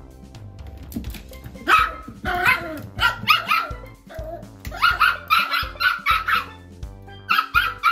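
Toy poodle barking angrily at a vacuum cleaner, a string of short sharp barks in quick runs starting about two seconds in, over background music.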